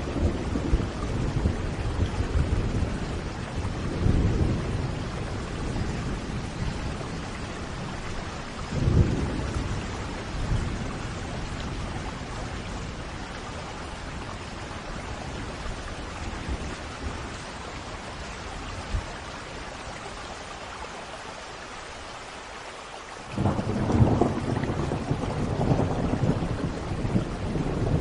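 Thunderstorm: steady rain hiss under low rolling thunder that rumbles through the first ten seconds and then fades. Near the end a new roll of thunder breaks in suddenly and builds.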